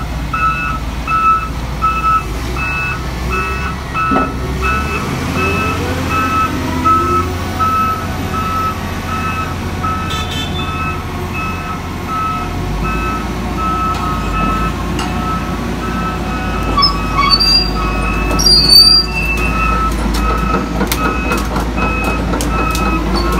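Backup alarm on heavy equipment beeping steadily, about two beeps a second, over a diesel engine running. A few sharp knocks come near the end.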